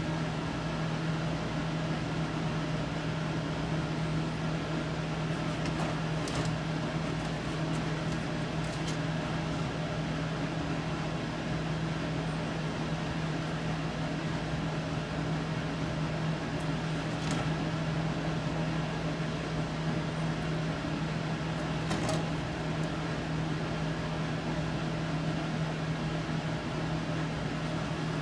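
Steady low mechanical hum, with a few faint clicks of hand work at the bench.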